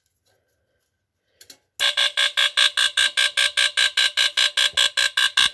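SPS Duo Alarm line-cord smoke detector from the mid-1970s, built on the KF Industries alarm, going off when plugged in. After a faint click, a loud, rapidly pulsing alarm tone starts about two seconds in, at about six pulses a second.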